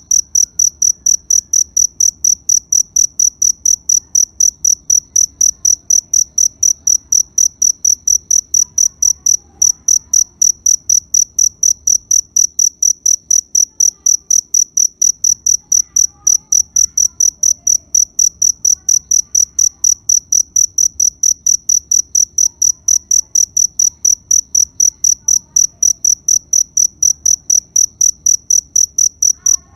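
A cricket chirping steadily in an even, unbroken rhythm of about three high-pitched chirps a second.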